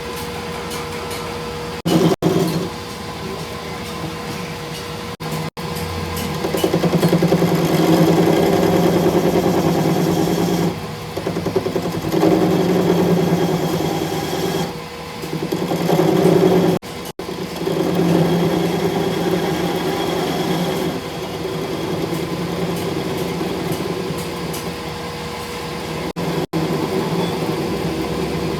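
Workshop machinery running with a steady motor hum and a constant tone, swelling louder and easing back several times and breaking off abruptly now and then.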